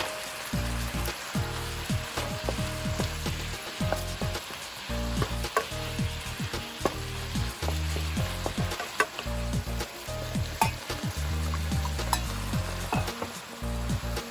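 Beef, broccoli and red bell pepper sizzling as they are stir-fried in a nonstick wok, with the wooden spatula scraping and knocking against the pan in irregular clicks and thuds.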